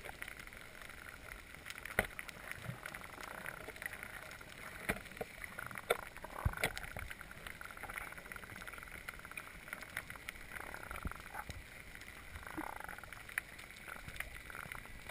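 Underwater reef ambience: scattered sharp clicks and crackles over a low hiss, with a few short swishing sounds.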